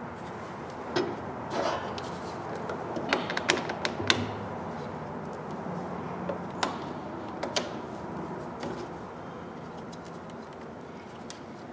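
Jump-starter cable clamps clacking and snapping as they are clipped onto a lawn mower battery's terminals: scattered sharp clicks and knocks, several in quick succession about three to four seconds in, a couple more later, then tapering off.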